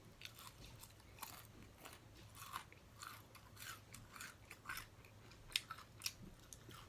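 Close-miked chewing: a person eating with their mouth near the microphone, a run of short, faint wet mouth clicks and crunches a fraction of a second apart.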